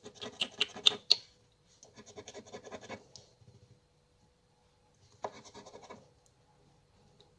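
Scratch-off coating of a crossword lottery scratch card being scraped with a scraper disc in quick rubbing strokes. The strokes come in three bursts: a sharp run at the start, a longer run of rapid strokes about two seconds in, and a shorter one about five seconds in.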